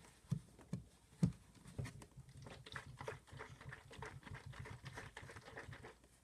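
A few knocks on a capped plastic water bottle, then a quick, irregular patter for about four seconds as the bottle of G Fuel and water is shaken. The patter stops suddenly near the end.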